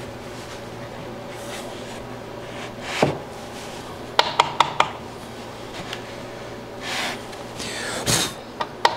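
Plywood panel being shifted and tapped against a table saw's metal top and wooden fence: a few scrapes, a quick cluster of four sharp taps about four seconds in, and more taps near the end, over a steady low hum.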